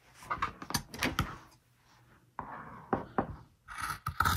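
Fabric and cutting tools handled on a worktable: a scatter of light knocks and clicks, with about a second of rustling near the middle.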